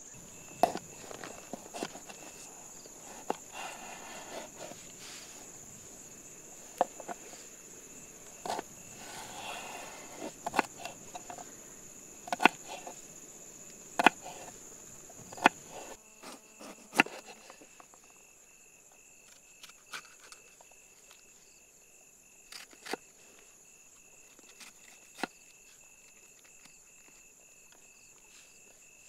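Crickets chirping in one steady high trill, with a second, lower insect trill plainer from about halfway through. Over it come irregular sharp knocks of a knife on a cutting board as vegetables are chopped, one every second or two and thinning out in the second half.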